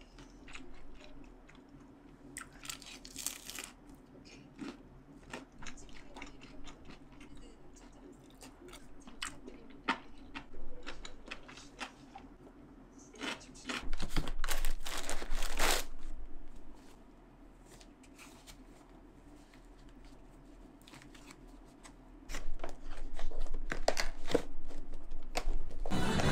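Crispy bites and chewing of deep-fried seaweed rolls (gimmari), with sharp crackles and small clicks for the first dozen seconds. Then loud crinkling of plastic packaging as a face mask is taken from its box, and another long stretch of handling noise near the end.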